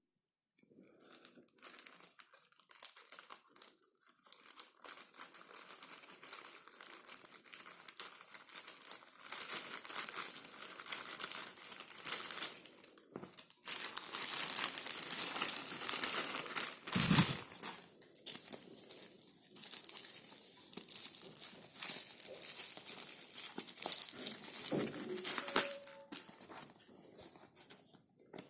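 Packaging crinkling and rustling as it is handled and opened, in irregular crackly bursts, with one louder sharp crackle a little past halfway.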